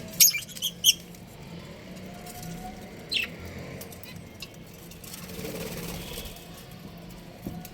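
Budgies chirping in short, sharp calls: a quick cluster in the first second and another single call about three seconds in, over a faint low steady hum.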